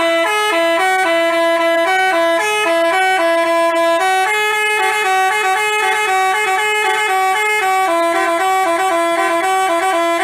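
Telolet Basuri bus horn, a set of musical air horns, playing a continuous fast tune of short stepped notes in two voices at once.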